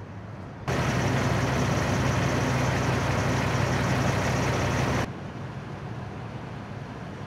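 Fire engine's diesel engine idling close by, a steady low running that starts abruptly about a second in and cuts off after about four seconds, with a quieter steady engine hum before and after.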